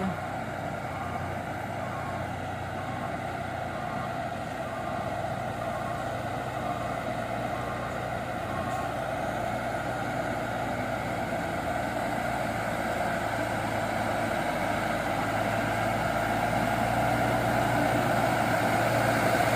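Mitsubishi Canter light truck's diesel engine pulling up a steep grade, running steadily and getting gradually louder as it approaches.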